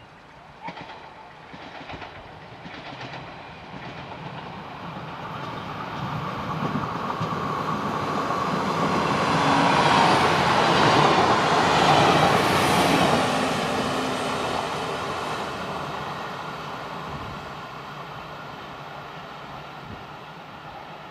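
730ML diesel multiple unit approaching on the track, its wheels clicking over rail joints. It grows steadily louder to a peak about ten to thirteen seconds in, then fades away.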